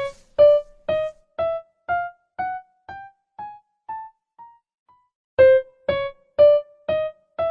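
The highest-octave layer of a Shepard tone (endless rising scale): short keyboard-like notes, about two a second, step up through one octave. They start loud and fade with each step until nearly inaudible, then the scale starts again loud at the bottom about five and a half seconds in.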